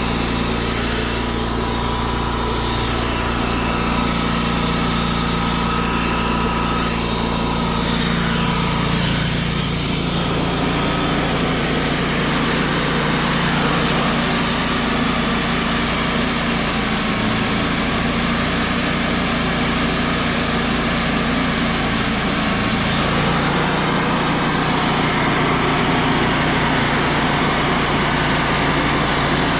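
Wood-Mizer LT35 portable band sawmill running steadily, its engine note shifting slightly about a third of the way in and again near the end.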